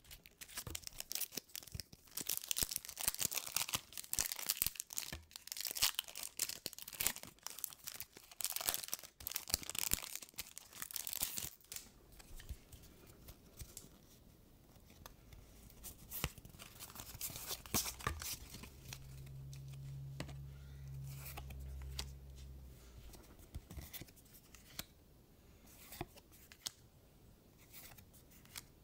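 Foil Pokémon booster pack crinkling and tearing open, a dense crackle for roughly the first twelve seconds. It gives way to quieter clicks and slides of trading cards being handled and flipped through. A low steady hum sounds for a few seconds in the middle.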